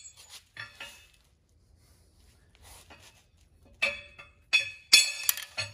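Sharp metal-on-metal knocks with a ringing edge: a few faint ones at first, then a run of louder ones from about four seconds in. A long crowbar, reached through the Dana 60 axle tube, is being struck to knock out the inner carrier bearing seal.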